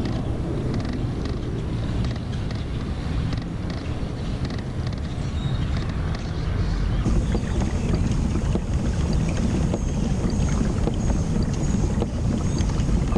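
Wind buffeting the microphone on a kayak on open water: a steady low rumble with no speech.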